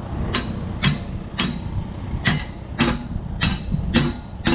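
Hammer striking metal on the flail mower, a steady series of about eight ringing blows roughly every half second, seating a part being tightened into place. A fan hums steadily underneath.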